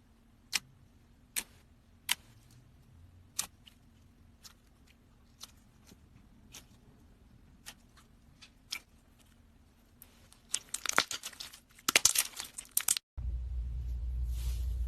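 Slime being handled: single sharp sticky clicks about once a second, then a few seconds of dense crackling and popping. After an abrupt cut comes a steady low hum with a soft hiss.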